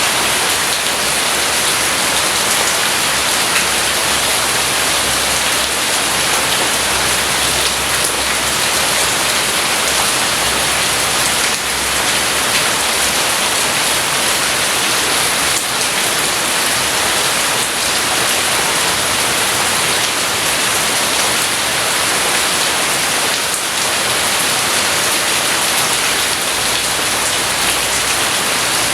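Rain falling steadily, an even, unbroken hiss of drops on a surface.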